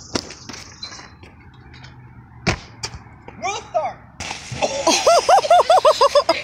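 A few sharp knocks early on, then from about four seconds in a rush of noise and a group of young people laughing and whooping loudly.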